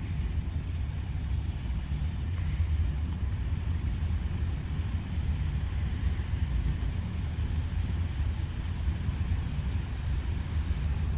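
Steady low rumble from the machinery of an automated pneumatic waste collection facility running continuously, deep and unbroken with little above the bass.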